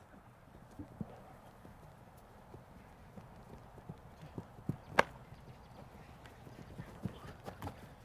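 Faint, scattered thuds of players' footsteps during an ultimate frisbee game, with one sharp slap about five seconds in.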